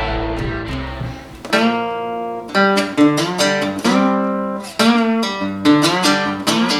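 Guitar music: a run of plucked notes and chords with sharp attacks, about one to two a second, following a fuller, lower strummed passage in the first second or so.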